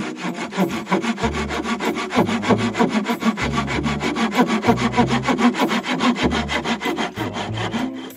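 Hand saw cutting through a wooden board, with quick, even back-and-forth strokes. The strokes stop just at the end.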